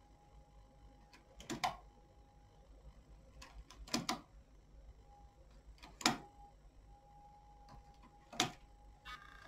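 Metal clicks from working on a domestic knitting machine's needle bed, four sharp clicks about two seconds apart over a faint steady tone.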